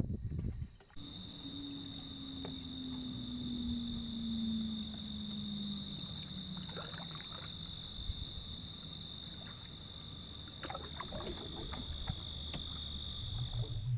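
A steady, high-pitched insect chorus over a canoe moving on calm water. Light paddle splashes and drips come at about six to seven seconds in and again around eleven to twelve seconds. A faint low hum slowly falls in pitch during the first few seconds.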